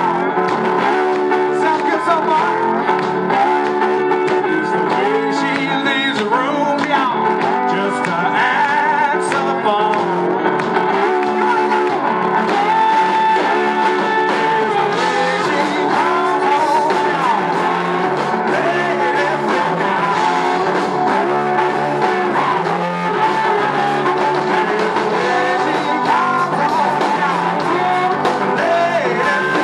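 Live blues band playing: slide guitar on a homemade double-neck electric guitar whose body is a car muffler, with notes that glide in pitch, over electric bass and drums.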